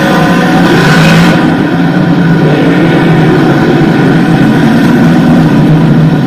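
Small-block V8 dirt modified race cars running past in a pack on the dirt oval, several engines at once blending into one dense, steady sound.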